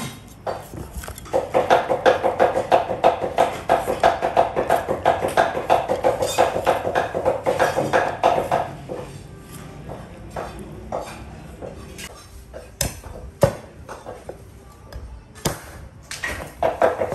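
Cleaver chopping rapidly on a wooden chopping block: a fast, even run of ringing knocks that stops about nine seconds in and starts again near the end. In between come scattered knife taps on the board and a few sharp single knocks.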